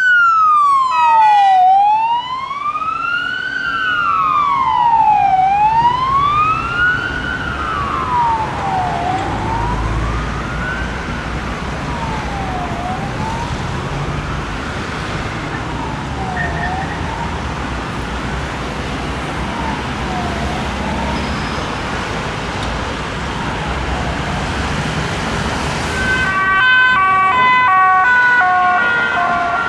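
Emergency vehicle siren wailing in slow rising and falling sweeps, each about three and a half seconds long, fading away over the traffic noise. Near the end a second siren starts with quick, stepped alternating tones.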